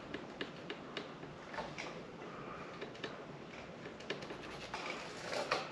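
Scattered light clicks and taps of hand tools on bicycle brake parts, with a louder cluster near the end, over the steady background noise of an air conditioner.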